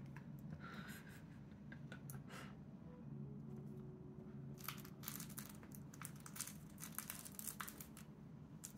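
Shiba Inu gnawing at the face of a knitted sock toy: faint scratchy crackles of teeth working the yarn, a few at first and coming thick and fast from about halfway in.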